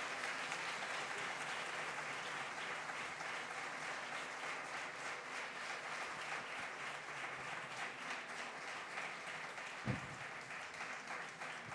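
Audience applauding, steady clapping that slowly dies down, with one dull thump near the end.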